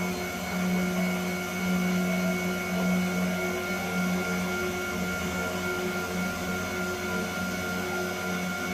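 Home-built CNC machine running: a steady motor whine made of several tones, the lowest one breaking on and off and short higher notes coming and going as the machine moves.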